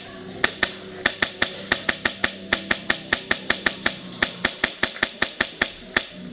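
Airsoft gun firing a long string of rapid single shots, about four to five sharp cracks a second, stopping near the end.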